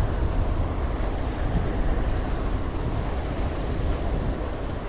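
Wind rumbling on the microphone over the steady wash of choppy sea waves.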